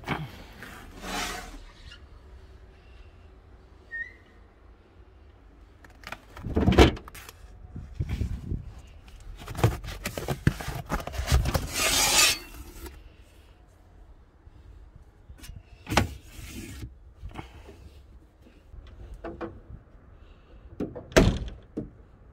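Rustling and knocking as the trunk's carpet lining and trim panels are pulled and handled, with scattered sharp knocks. Near the end comes a loud thud, fitting the trunk lid being shut.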